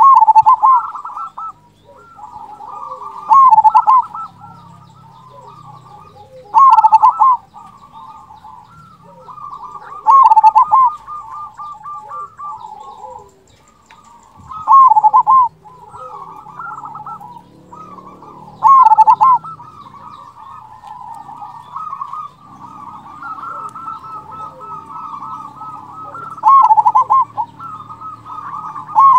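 Zebra dove (perkutut) singing its cooing song: a loud phrase about every four seconds, with softer rolling coos between the phrases. The phrases are the big 'kung' voice prized in a gacor (in-song) local perkutut.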